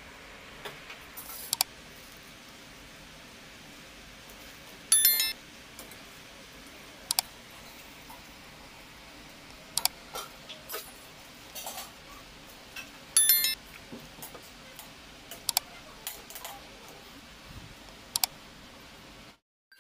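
A steel pot with spinach in water being handled: scattered sharp clicks, and two louder, briefly ringing metallic clinks about five and thirteen seconds in.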